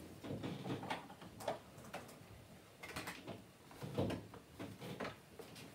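Handling noises as a guitar and its cable are set up: irregular clicks, knocks and rustles, with a louder knock about four seconds in.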